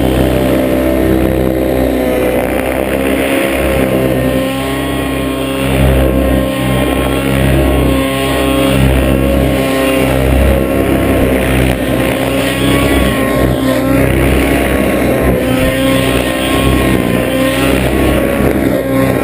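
Small engine of a radio-controlled model helicopter running at high speed together with its spinning rotor, a loud, steady pitched drone whose pitch wavers slightly as the helicopter manoeuvres overhead.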